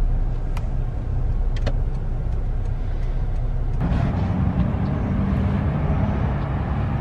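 Car cabin noise: a low road rumble while the car rolls slowly, with a few light clicks. About four seconds in the sound switches to a steady outdoor engine hum.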